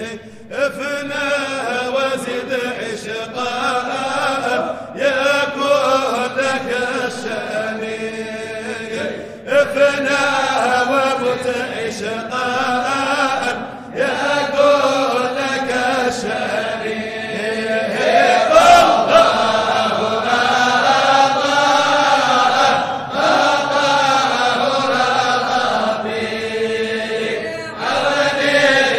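Sufi qasida chanted in Arabic: sung phrases of a few seconds each, separated by short pauses for breath.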